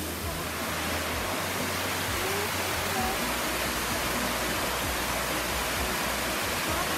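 Waterfall cascading over rocks: a steady rush of water.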